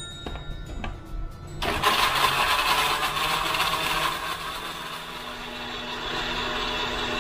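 Countertop blender motor switched on about a second and a half in, then running steadily at high speed as it churns garlic, chillies and liquid into a paste. A few light clicks come before it starts, as the lid is held down.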